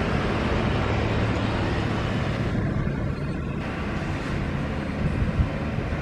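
Tour bus diesel engine running steadily at low revs, with road and traffic noise around it and a single short knock near the end.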